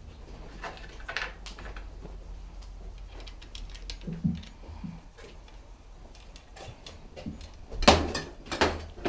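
Tools and bike parts being handled during assembly: scattered clicks and knocks, with a louder clatter about eight seconds in.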